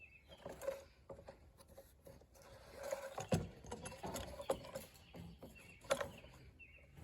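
Hand handling of a mower fuel gauge, washer and rubber grommet at the fuel tank opening: irregular light clicks, taps and rubbing, with a sharper knock about three seconds in and another near six seconds.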